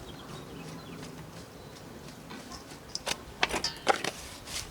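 Clicks and taps from seasoning containers being handled over the chicken. The first three seconds are quiet, then a cluster of sharp clicks and rattles comes from about three seconds in.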